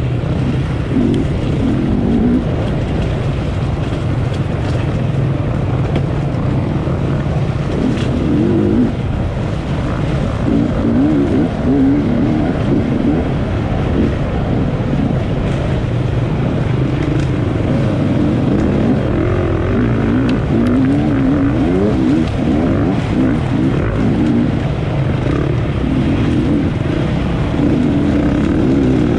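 Enduro motorcycle engine revving up and down as the bike is ridden, its pitch rising and falling continually over a steady rushing noise.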